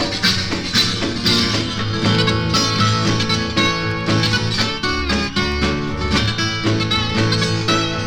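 Instrumental break of a 1950s country record: a plucked guitar takes the lead over a steady beat of rhythm backing, with no singing.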